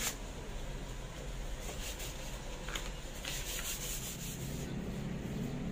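Sandpaper rubbed by hand over a wooden tabletop's finish, in short, uneven rasping strokes that thin out toward the end. A low rumble comes in near the end.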